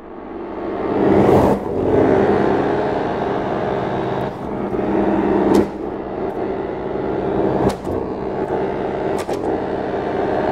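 Chromatic button accordion sounding a dense, sustained cluster of many close pitches that swells up over the first second and a half and then holds loud. Sharp clicks cut through it about five times.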